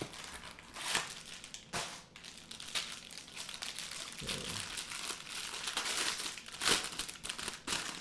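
Packaging being handled while a silicone pop-it fidget toy is unpacked: a cardboard box rustling, then a clear plastic bag crinkling around the toy. The crinkling grows denser from about halfway, with a soft thump just then.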